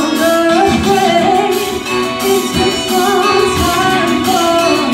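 A singer performing a song live into a handheld microphone, amplified over the stage speakers, with instrumental accompaniment and a low beat about once a second.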